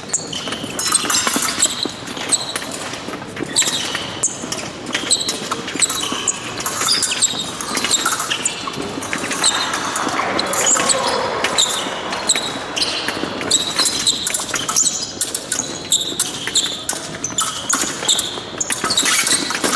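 Épée fencers' footwork on the piste: quick thudding steps, stamps and shoe squeaks mixed with sharp clicks, echoing in a large hall.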